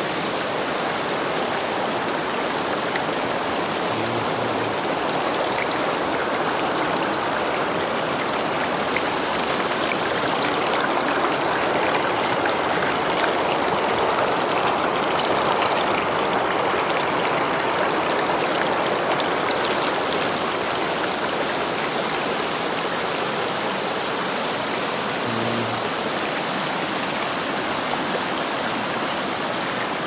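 Elwha River rushing: a steady wash of flowing water, a little louder around the middle.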